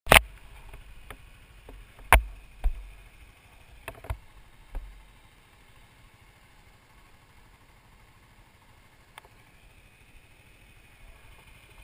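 A cluster of sharp knocks and taps from handling the GoPro action camera, the loudest right at the start and another about two seconds in, with a few more up to about five seconds. After that only a faint steady background remains.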